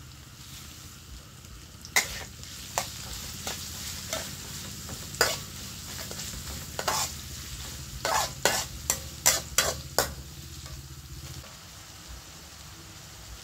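Onions, garlic and red chillies sizzling in oil in a steel wok while a metal spatula stirs and scrapes them, striking the pan in sharp clanks, with a quick run of them about two-thirds of the way through.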